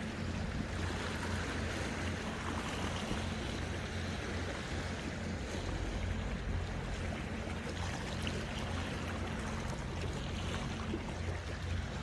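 Small sea waves lapping and washing against shoreline rocks, a steady wash of water with a low rumble underneath.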